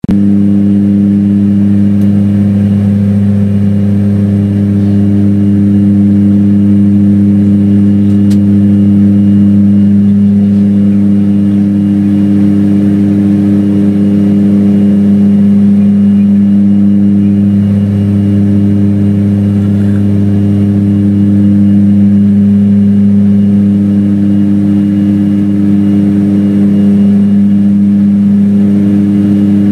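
Propeller aircraft's engine and propeller droning steadily in flight, heard from inside the cabin: a loud, even hum of low tones, with one higher tone fading in and out every few seconds.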